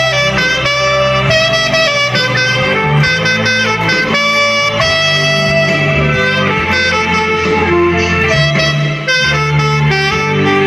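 Saxophone playing a slow melody of held notes over a backing track with guitar and bass.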